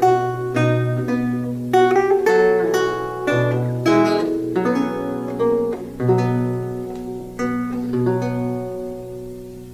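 Renaissance lute played solo: plucked notes and chords of a short piece, the last chord ringing out and fading near the end.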